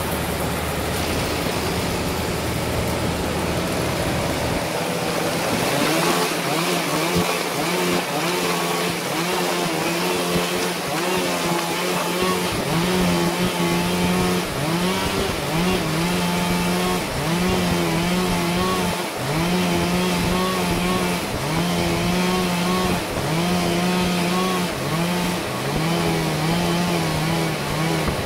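Sawmill saw and its engine running. From about six seconds in, the engine note repeatedly dips and recovers about every second and a half, as the blade works through the wood.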